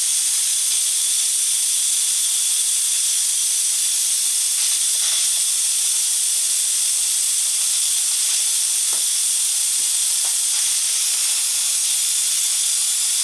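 Electric pressure cooker venting steam through its release valve during a manual pressure release: a loud, steady high hiss.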